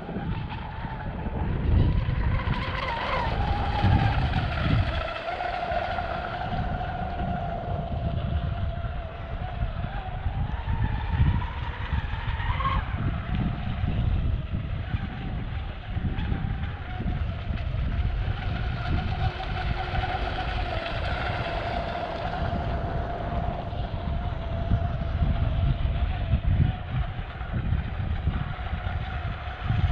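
Pro Boat Blackjack 42 RC catamaran running on 8S, its brushless electric motor whining with a pitch that wavers up and down with the throttle. Twice the sound swells with added hiss, about three seconds in and again around twenty seconds in. Wind rumbles on the microphone.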